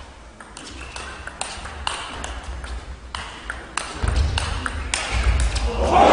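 Table tennis rally: the ball clicks sharply off the bats and the table in quick succession, a few tenths of a second apart, with low thuds joining about four seconds in. Near the end the crowd starts to cheer as the point ends.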